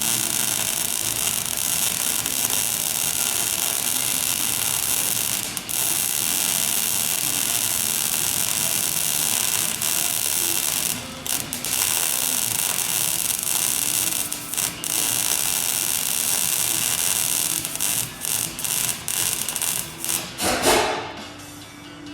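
Arc welding on a plow: a steady hiss from the arc, broken by several short stops and restarts. The stops come closer together near the end, and a louder burst just before the sound dies away.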